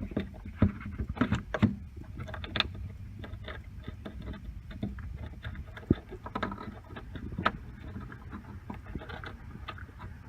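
Irregular clicks and knocks of an RV keyless lock and its metal door hardware being handled and fitted into a camper door, with a cluster of louder knocks in the first two seconds. Wind rumbles on the microphone underneath.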